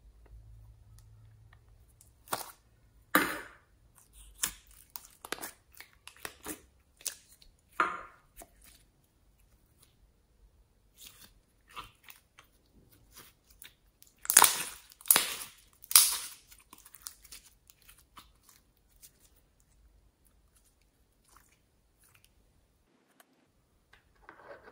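Clear store-bought slime squeezed and kneaded by hand, giving irregular sticky crackles and pops, with three louder crackles about two-thirds through.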